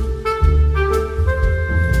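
Instrumental background music: a melody of held pitched notes over a bass line, with light percussion hits.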